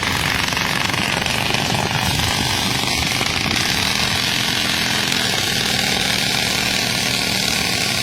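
Small motorcycle engine running steadily and loudly, on a bike modified to keep running in flood water.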